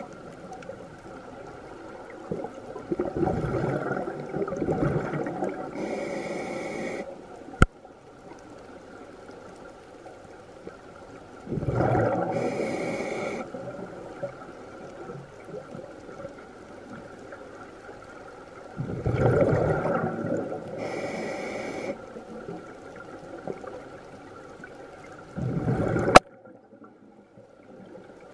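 Scuba regulator breathing underwater: the hiss of inhaling through the regulator alternates with a gurgling rush of exhaled bubbles, about four breaths in all, one every seven to eight seconds. Two sharp clicks stand out, the louder one near the end.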